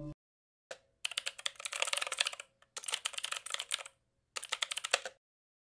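Computer keyboard typing: one keystroke, then three quick runs of keystrokes with short pauses between them, stopping about five seconds in.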